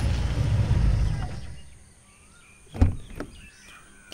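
An SUV's engine running with a low rumble that dies away about a second and a half in, after which birds chirp and two short knocks sound about a second apart.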